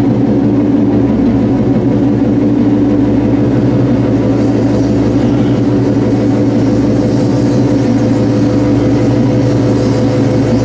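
Power-electronics industrial noise music played live through a PA: a loud, steady electronic drone of layered low tones over a haze of noise, with no vocals.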